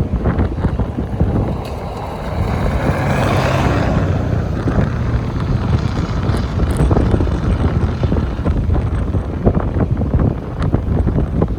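Strong wind buffeting the microphone with a heavy low rumble, and a louder hissing gust swelling and fading about two to four seconds in.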